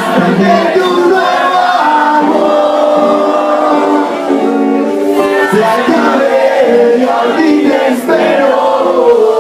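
Live music: a band playing with several voices singing together, thin and without bass as heard through a phone recording.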